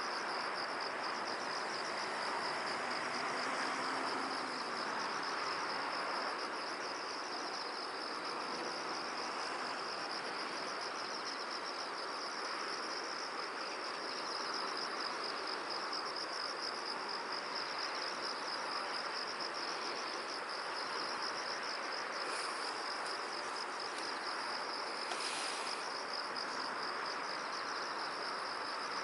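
Field insects, crickets, chirping in a steady, fast pulsing trill over a constant rush of wind.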